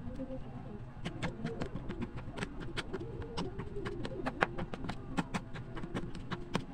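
Metal spoon clicking and scraping against a plastic container as mango flesh is scooped and mixed, in quick irregular clicks from about a second in.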